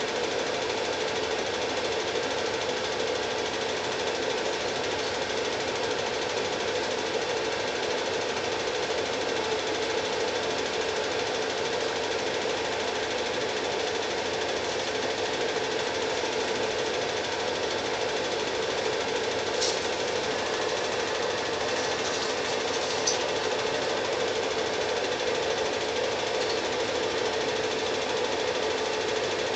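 Cine film projector running with a steady mechanical clatter, with a few sharp clicks about two-thirds of the way in.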